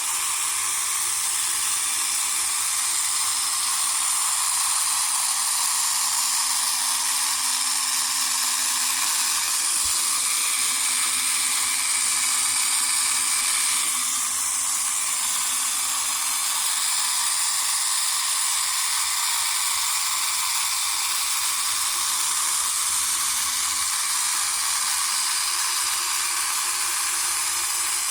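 Single small electric motor and plastic gear-and-cam drive of a tabletop toy robot vacuum cleaner running steadily, a continuous mostly high-pitched motor noise.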